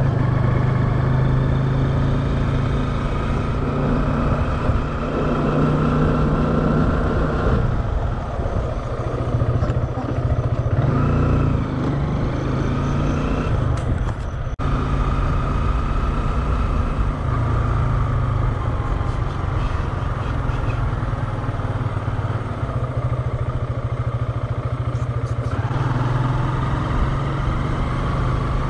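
Motor scooter engine running under way, with a steady low hum and road and wind noise over it. The engine note eases off for a few seconds around the middle, then picks up again.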